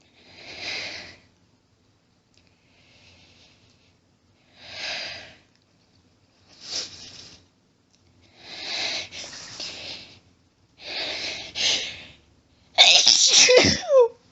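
Allergy sneezing fit: a run of breathy, half-held-back sneezes and in-breaths every second or two, building to one loud, full sneeze near the end.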